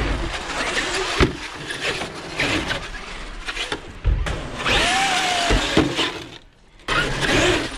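Electric RC monster truck driving on wet asphalt and skate ramps: a steady motor whine and tyre noise broken by sharp knocks as the truck hits the ramps and tumbles. The loudest knocks come about a second in and again past the middle. The sound cuts off abruptly twice.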